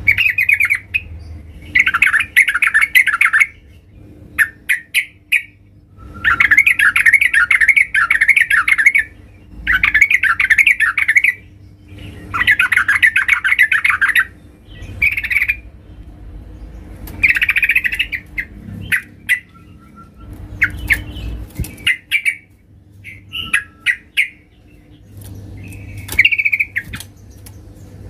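Female yellow-vented bulbul (trucukan) calling to draw a male: bursts of rapid chattering a second or two long, repeated after short pauses, with scattered short chirps between them. A faint steady hum runs underneath.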